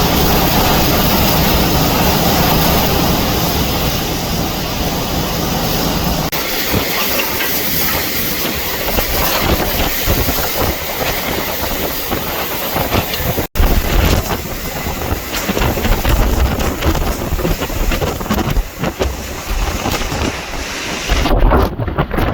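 Hurricane-force wind in a hurricane's eyewall, a constant loud rush with gusts that buffet the microphone. The sound changes abruptly twice, about six seconds in and again about halfway through.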